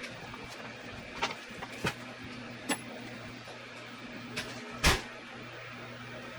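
Scattered clicks and knocks of hand work on a leather ball glove being relaced, over a steady low hum; the loudest knock comes near the five-second mark.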